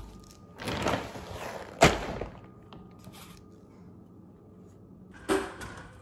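Dried black soldier fly larvae rustling in their plastic bag and being poured into a plastic cup, with a sharp knock just under two seconds in and another short rattle near the end.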